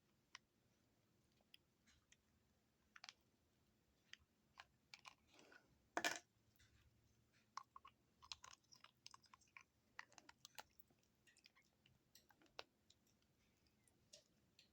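Faint, scattered clicks and sticky crackling of slime-coated plastic toy pieces being handled and pressed together, with one louder knock about six seconds in.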